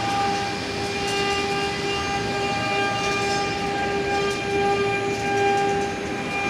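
A CNC engraving machine's motors giving off a steady, even whine made of several held tones.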